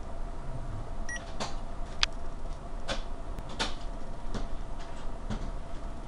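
Wind-driven snow and ice striking a passenger-car window in a blizzard: irregular sharp ticks on the glass, about one a second, over the car's steady low hum.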